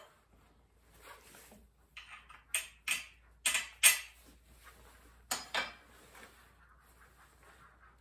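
Hand tools and steel parts clinking and knocking against each other while a car steering rack is worked on: a string of sharp metal clanks, mostly in pairs, the loudest about four seconds in.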